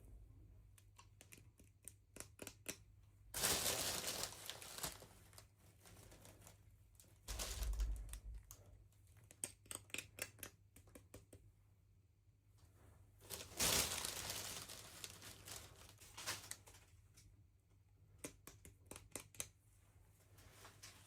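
Packaging being crinkled and torn open by hand, with many small clicks and taps; two louder stretches of crinkling come about three and a half and thirteen and a half seconds in.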